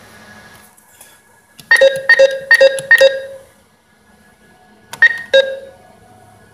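A short ringing tone struck again and again at the same pitch: five quick notes, then two more about two seconds later.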